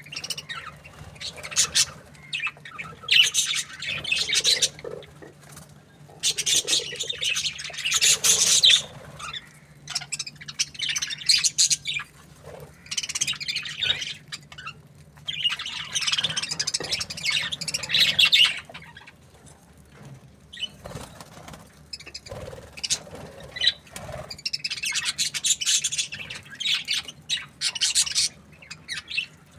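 Budgerigars chattering and chirping in repeated bursts of rapid, high-pitched calls a second or two long, with short quieter gaps between.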